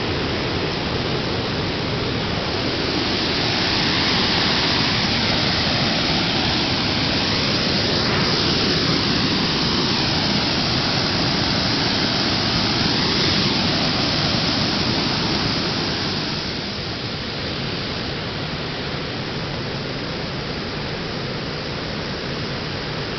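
A steady rushing hiss, like running water or wind noise, with a slow sweeping, phasing quality in the middle. It drops a little in loudness near the end.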